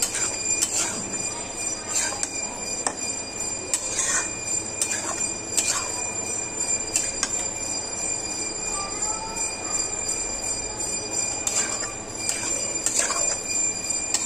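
A metal spoon scraping and clinking against a metal kadai while masala macaroni is stirred, with irregular clinks a second or so apart and a pause in the middle. A steady hiss runs underneath.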